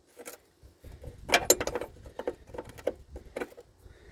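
Irregular sharp metallic clicks and clinks of hands and tools working a brake hose fitting as it is being threaded in, with a quick cluster of them about a second and a half in.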